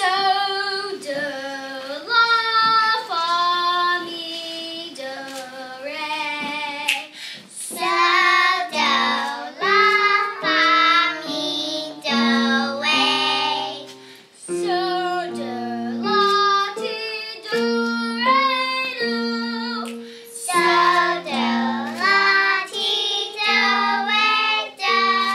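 Young girl singing a show tune solo, in clear held notes over an instrumental accompaniment.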